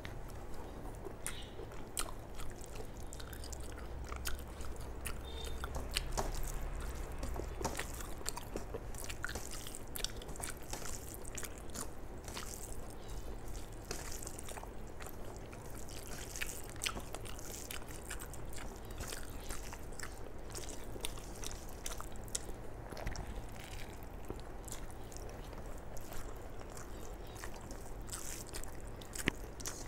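Close-miked chewing and wet mouth sounds of a person eating rice and chicken gizzard curry by hand, with scattered small clicks and the squish of fingers mixing rice and curry on a steel plate.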